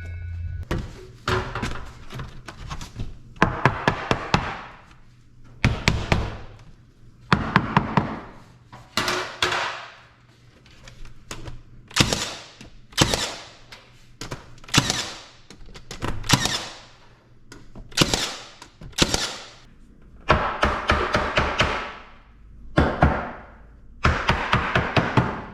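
Milwaukee M18 Fuel cordless brad nailer firing brads into wooden window casing: a long series of sharp thunks, some single, some in quick runs of two or three, about one a second, each with a brief whir dying away after it.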